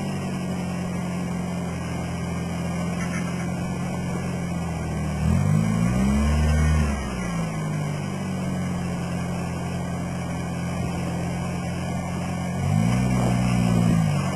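Toyota LJ70 Land Cruiser engine running at a steady, low speed. It is revved up twice, about five seconds in and again near the end, each time rising in pitch for a second or two before dropping back.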